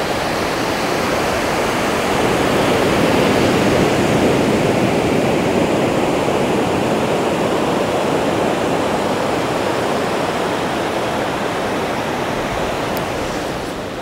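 Light surf breaking and washing up a sandy beach: a continuous rush of waves, a little louder a few seconds in.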